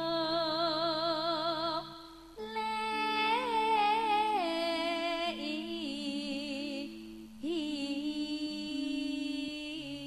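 A woman singing long, drawn-out notes with a wavering vibrato into a microphone, in phrases with short breaths between them, over a steady held accompaniment.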